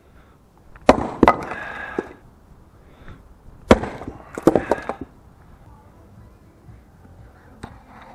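Splitting maul striking a log on a chopping block: two sharp blows about three seconds apart, each followed by the crackle and clatter of the wood splitting apart.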